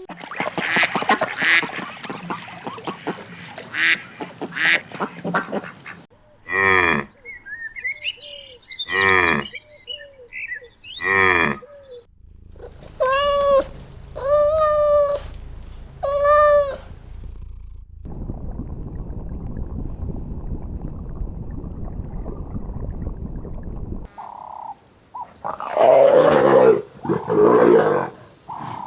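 A run of different animal calls, one clip after another. Near the start comes scratchy, clicky rustling. Then come three loud sweeping calls, three shorter pitched calls, a stretch of low steady noise, and two loud calls near the end.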